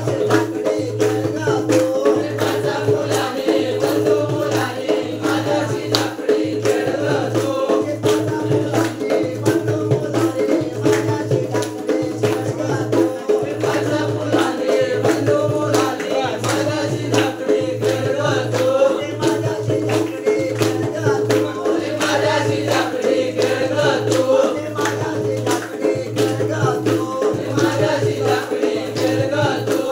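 Live folk dance music: a barrel-shaped two-headed hand drum keeps a steady beat under group singing, with jingling hand percussion throughout.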